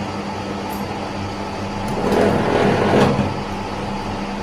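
B15 wire stripping machine running with a steady hum. It gets louder and rougher for about a second, starting about two seconds in.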